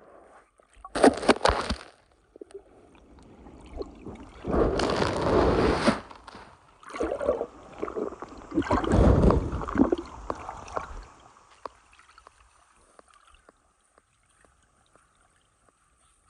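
Water sloshing and splashing in several short bursts, then going nearly quiet for the last few seconds.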